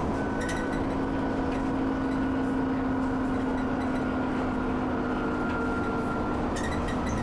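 Alexander Dennis Enviro 400 double-decker bus's diesel engine running hard at motorway speed, heard from inside the bus: a steady drone with a high thin whistle from its wheezing turbo that slowly drops in pitch.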